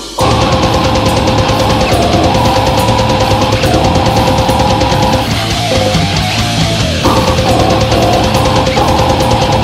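Brutal death metal recording: distorted guitars and drums, loud and dense, with a split-second break right at the start before the band comes back in.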